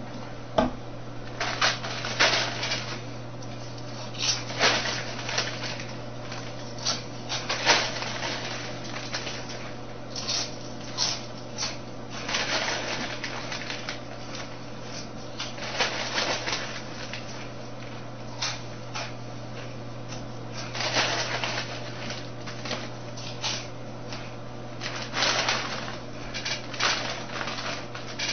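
Kettle-cooked potato chips being crunched and chewed quickly, with crinkling of the chip bag, in irregular bursts over a steady low hum.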